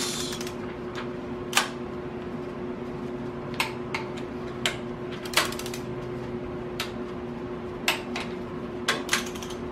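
Click-type torque wrench snapping as it reaches its set 30 ft-lb on the rocker shaft bolts of a Ford 390 FE stroker engine, the first of two torque steps. There are about eight sharp clicks at uneven gaps of one to two seconds, over a steady hum.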